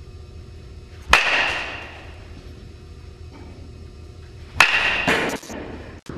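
A baseball bat hitting a ball twice, about three and a half seconds apart. Each hit is a sharp crack with a brief ringing tail, and a few quick clatters follow close after the second.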